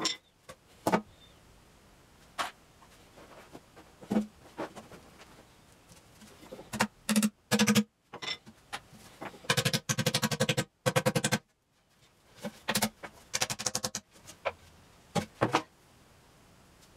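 Intermittent sharp clicks and knocks, with a few short stretches of fast, buzzy rattling, the longest about ten seconds in. The stretches are broken by abrupt cuts to silence.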